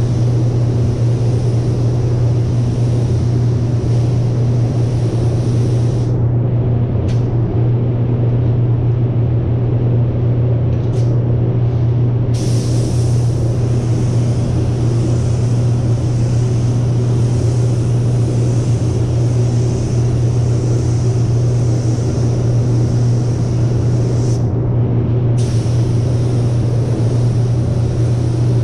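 Paint spray booth's ventilation running with a loud, steady low drone, under the hiss of a compressed-air paint spray gun. The gun's hiss stops briefly three times as the trigger is released, about six seconds in, around eleven seconds, and near the end.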